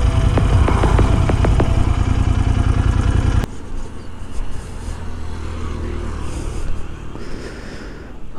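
Royal Enfield Interceptor 650's parallel-twin engine running at road speed, with heavy wind noise on the microphone. About three and a half seconds in, the sound drops abruptly to a quieter low rumble.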